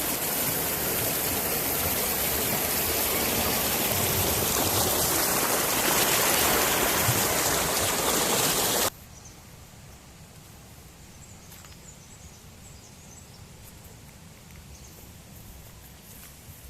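Waterfall's rushing water, a loud steady hiss that cuts off abruptly about nine seconds in, leaving a much quieter background with a few faint ticks.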